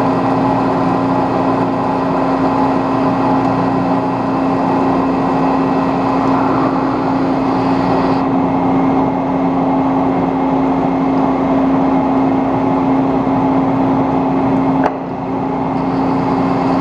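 Metal lathe running and taking a cut on a sawmill mandrel's fast collar, the tool peeling off long curling chips: a steady machine hum under a rough cutting hiss. The hiss eases about eight seconds in, and a sharp click and brief drop in level come near the end.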